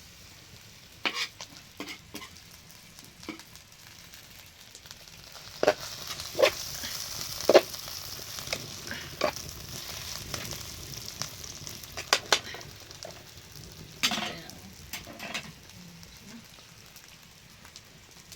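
Food frying in a pan: a sizzle that swells about five seconds in and dies down after about twelve, with repeated sharp clicks and knocks.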